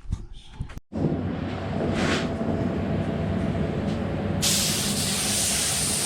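A steady low rumble starts about a second in, then a paint spray gun opens up with a loud, even air hiss about two-thirds of the way through.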